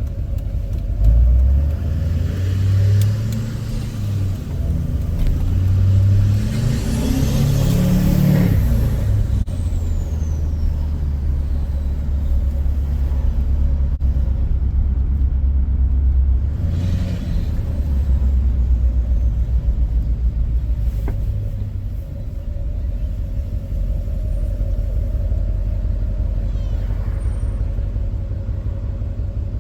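LBZ Duramax 6.6-litre turbodiesel V8 accelerating, its engine rumble climbing through the first several seconds with a rising whoosh that peaks about eight seconds in, then settling into a steady cruising drone with a second, shorter surge later on.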